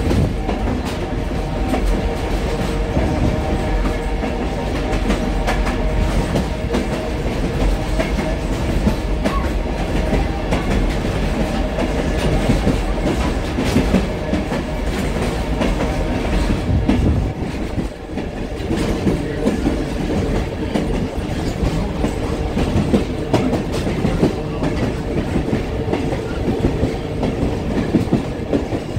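Passenger train rolling along, heard from aboard: a steady rumble of the cars with a rapid clickety-clack of the wheels over the rail joints, briefly dipping in loudness about two-thirds of the way through.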